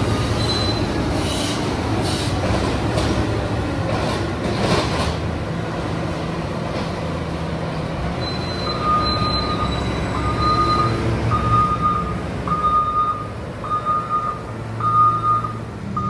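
Heavy diesel machinery running in a silage clamp: a JCB loading shovel working the grass heap, with the engine's low rumble throughout. From about halfway through, a reversing alarm beeps steadily, about once a second.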